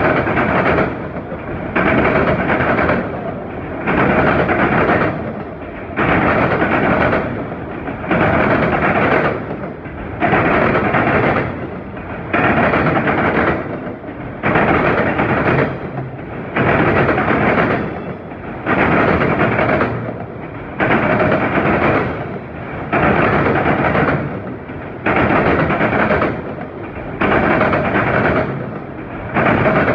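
Freight train of auto rack cars rolling past, its noise swelling and dropping in an even rhythm about every two seconds as car after car goes by.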